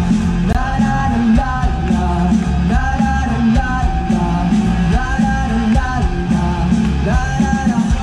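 Rock band playing live through a PA: electric guitars and drums under a singer's voice, with sung lines coming about every two seconds.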